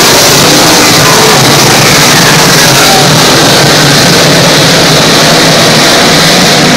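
A pack of dirt-track modified race cars running at racing speed around the oval, their engines making a loud, continuous drone of overlapping exhausts as the field passes and circles.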